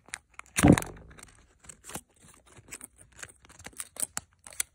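A sheet of colored origami paper being folded and pressed into creases by hand: crinkling and crackling in short, irregular bursts, with one louder rustle about half a second in.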